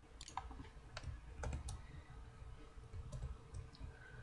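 A few scattered, irregular clicks of a computer keyboard and mouse, faint, over a low steady room hum.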